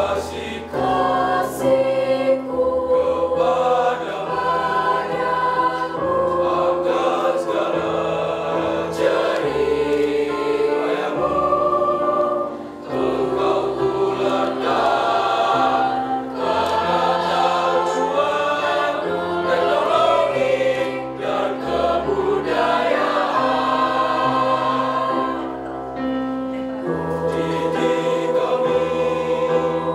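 Mixed choir of girls' and boys' voices singing in parts, with held chords over a low bass line; it briefly grows softer about 13 seconds in.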